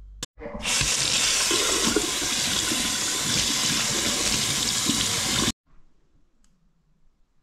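Water running steadily from a tap, starting just after a short click and stopping abruptly about five and a half seconds in.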